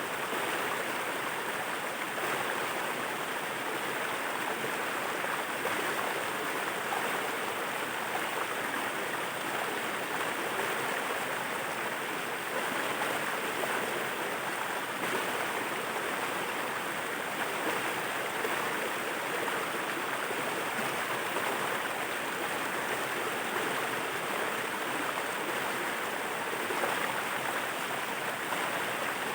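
Waterfall: falling water rushing steadily with an even hiss and no change in level.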